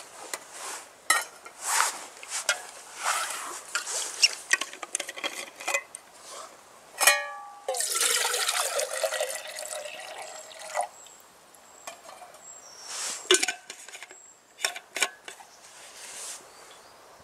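Water being poured into a camping pot, running for about three seconds near the middle, among clinks and knocks of the cookware being handled.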